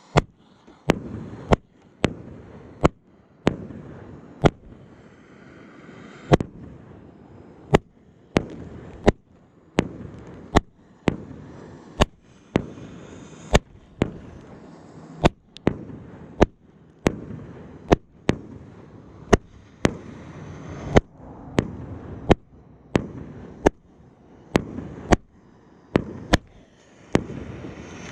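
Consumer firework cake firing shot after shot: sharp bangs about one every three-quarters of a second, each trailing off in a short rumble.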